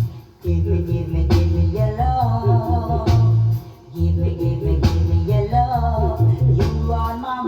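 Reggae music: a heavy bass line, a sharp drum hit about every second and three-quarters, and a bending lead melody above. The bass drops out briefly at the start and again about three and a half seconds in.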